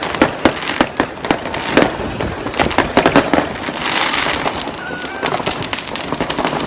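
Fireworks going off all around: many sharp bangs and crackles at irregular spacing, thickest about halfway through and again near the end.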